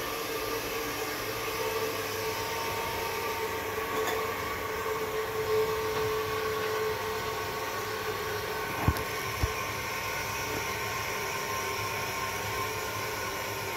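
Toilet cistern refilling after a flush: the fill valve gives a steady hiss with a faint whistling tone. Two short knocks about nine seconds in.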